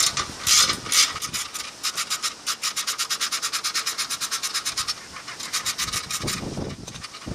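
Rapid, even scraping or rubbing strokes, about seven a second, with a few louder strokes in the first second. The strokes fade near the end.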